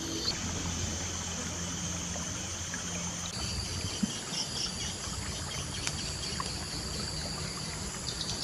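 Running water trickling steadily, with thin high-pitched tones above it; the mix changes abruptly about three seconds in.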